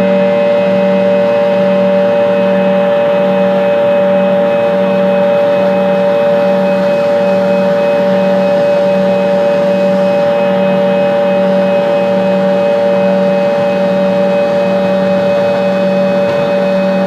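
Fokker 70 jet cabin noise with the Rolls-Royce Tay turbofans at steady high power during the climb after take-off: a loud, even drone with a steady whine and a low hum that pulses slowly, about one and a half times a second.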